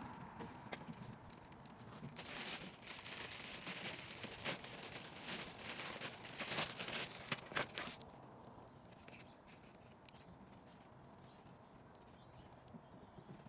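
Clicks, knocks and rustling from plastic trim and a filter being handled, dense for several seconds in the middle and then fading to faint handling noise.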